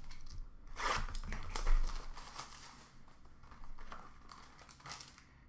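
Crinkling and rustling of trading-card packaging being opened and handled, a cardboard box and foil pack wrapper, in irregular bursts that are busiest in the first half.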